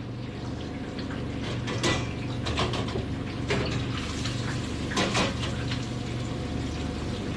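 Steady low mechanical hum of kitchen equipment, with a few scattered light clicks and clatters of food and dishes being handled.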